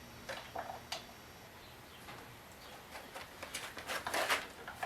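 Light scattered clicks and taps of hands working on a chainsaw during a spark check: a few separate clicks about a second in, then a quicker run of small clicks and taps in the second half.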